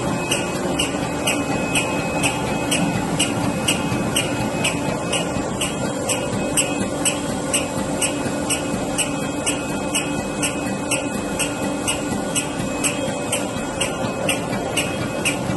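GK-650T window patching machine running steadily: a constant mechanical hum with a regular sharp tick about three times a second.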